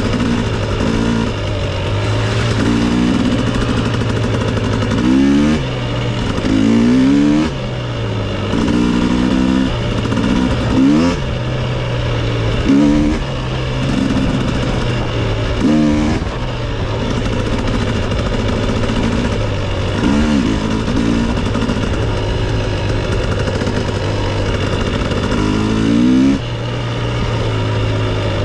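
Dirt bike engine running while riding along a trail, rising in pitch as it revs up several times between stretches of steady running, with wind and tyre noise throughout.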